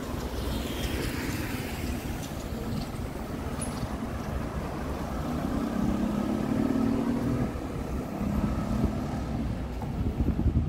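Road traffic passing close by: steady vehicle rumble, with one vehicle going past with a falling pitch at the start and an engine's low drone building up in the middle.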